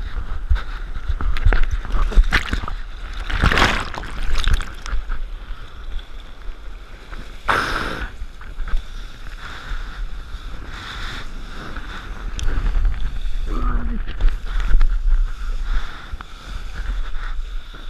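Wind buffeting the action-camera microphone and sea water rushing and splashing as a kitesurfer rides across the waves, with two louder splashes, about three and a half and about eight seconds in.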